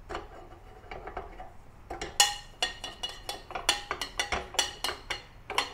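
A metal spoon stirs mustard seeds in oil in a stainless steel frying pan, scraping and clinking against the pan. From about two seconds in, the ringing clinks become louder and more frequent, about three or four a second.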